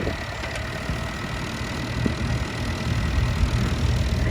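An engine idling, a steady low rumble.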